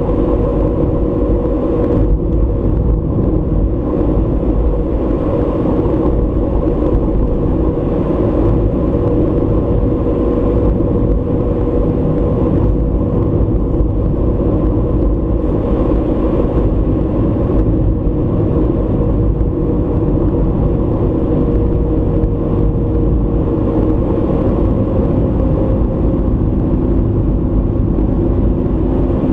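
A car driving at steady speed, heard from inside the cabin: a constant rumble of engine and road noise with a low hum whose pitch drifts slightly.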